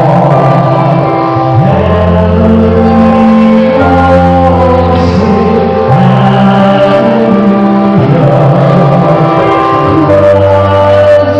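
A man singing a Christmas song into a microphone over amplified instrumental accompaniment, the sustained chords changing about every two seconds.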